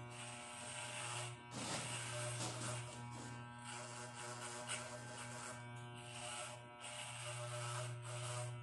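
Corded electric hair clipper running with a steady buzz while cutting hair, its blades adding a hiss that swells and thins as the clipper is moved over the head.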